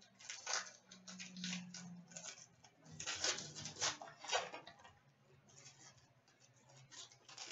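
Hands opening and handling a pack of hockey trading cards: the wrapper crinkles and rustles and the cards click, in irregular clusters that are loudest about three to four seconds in and thin out after about five seconds.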